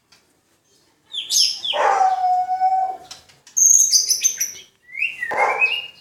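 An 11-month-old white-rumped shama (murai batu) singing: three short, varied phrases of whistles and quick notes, the first starting about a second in.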